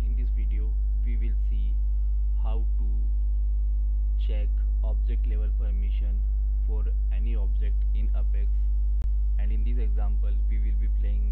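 Loud, steady electrical mains hum in the recording, a low drone with a stack of buzzing overtones, with a faint voice under it. There is a brief click about nine seconds in.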